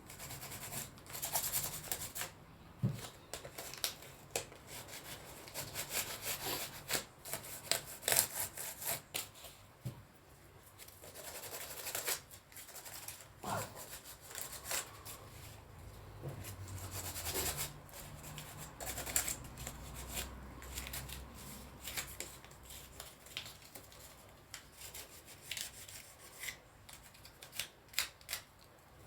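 Very fine P2500 sandpaper rubbed by hand over a painted fairy-house ornament in short, irregular scratchy strokes, taking off loose paint.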